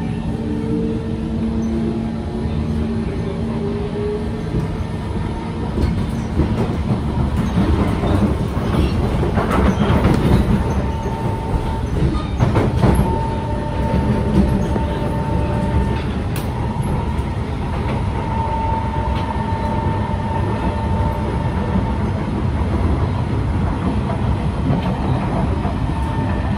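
Interior of a Kawasaki C151 metro train pulling away and running: the traction motors whine, rising in pitch over the first few seconds as it gathers speed, over a steady rumble of wheels on rail with scattered clicks and brief squeals from the track.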